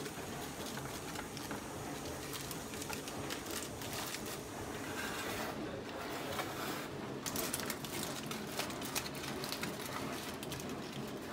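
Aluminium foil crinkling and crackling in a run of small rustles and clicks as hands crimp the sides of a foil pouch shut in a baking pan.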